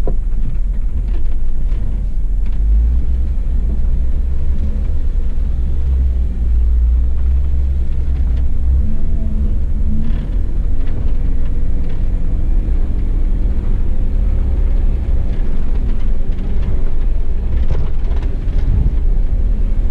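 Rented Jeep driving over the off-road trail: a loud, steady, deep rumble with faint engine tones above it.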